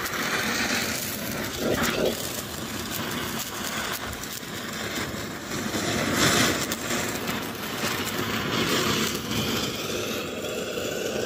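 A chakri (ground-spinner firecracker) burning inside the rear of a toy car, hissing steadily as it spews sparks and flame, with a louder surge about six seconds in.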